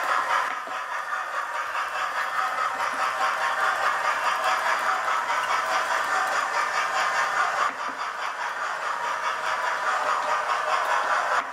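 Model railway trains running on the layout's track: a steady whirr of electric motors and wheels on the rails, dipping briefly about eight seconds in.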